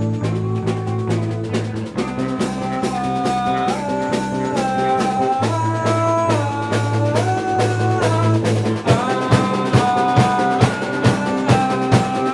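Instrumental passage of a band's song, with drum kit, bass and a melodic line that holds each note, then steps to the next. About three quarters of the way in the drums come forward, hitting a steady beat about twice a second.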